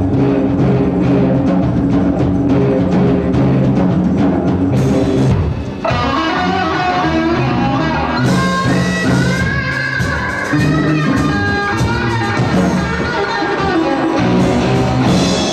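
A live rock band playing: drum kit, electric guitars and keyboard through stage amplification. A little before halfway the sound briefly dips and then opens out, with a higher melodic line carried over the band.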